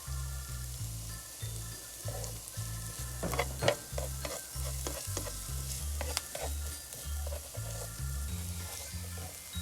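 Food sizzling in a frying pan while it is stirred, with a run of sharp clicks and scrapes of the utensil against the pan about three to six seconds in. Background music with a steady bass beat plays throughout.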